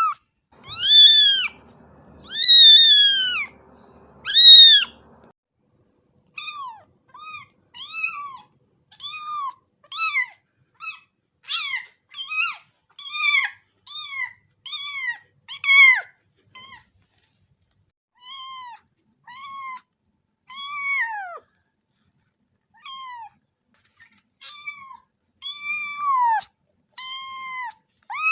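A cat meowing over and over. It starts with three loud, drawn-out meows, then goes into a long run of shorter, quieter meows at about one to two a second, with a few brief pauses.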